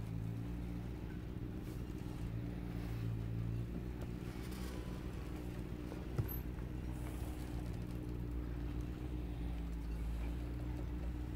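A steady low mechanical hum, with one short click about six seconds in.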